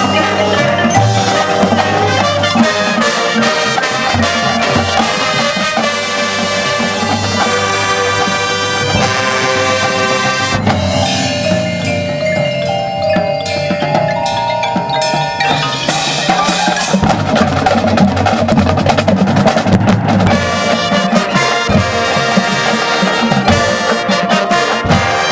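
Marching band music led by percussion: drums and front-ensemble mallet instruments such as marimba, xylophone and glockenspiel. About halfway through it thins to a lighter run of mallet notes, then the full band fills back in.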